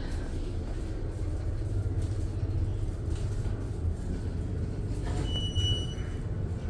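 Steady low mechanical rumble, with a single high electronic beep lasting about a second near the end.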